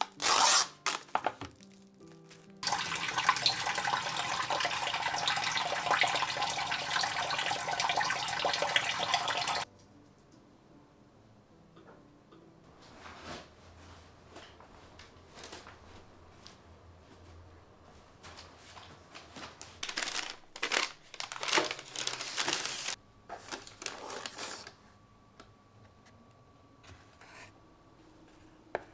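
Water tap running steadily into a sink for about seven seconds, then shut off abruptly. Scattered clicks and brief clatter of kitchen things being handled follow.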